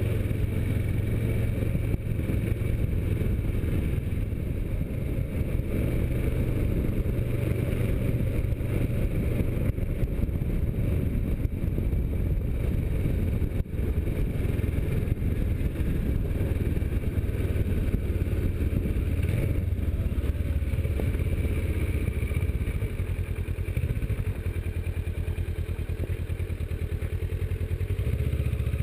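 Kawasaki Versys motorcycle running at a steady, low road speed, heard from a camera mounted on the bike. The engine and the road and wind rumble stay even throughout.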